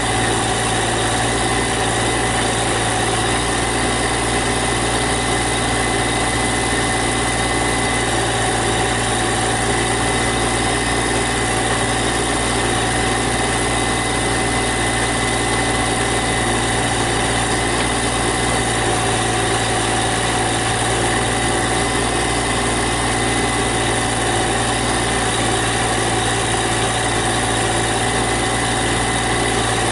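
Massey Ferguson GC1710 subcompact tractor's diesel engine running at a steady speed: an even drone with a constant high tone over it and no rise or fall.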